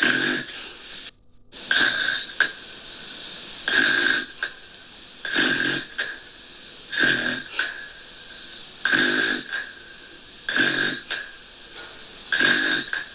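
Steady rhythmic snoring, one rasping snore roughly every two seconds, with a brief break in the sound about a second in.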